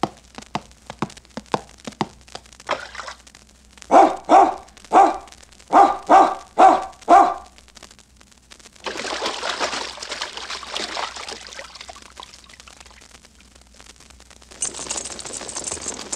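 Sound-effects record playing on a portable turntable: a ball bouncing, about two or three taps a second, then a dog barking about eight times, then two longer stretches of hissing noise.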